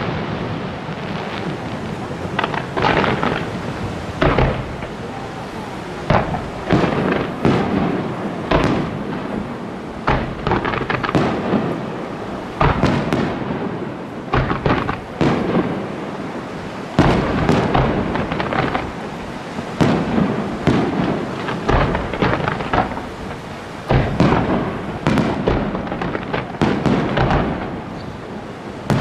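Aerial fireworks display: a continuous run of shell bursts, booming irregularly several times a second over a steady crackle, with the bangs echoing.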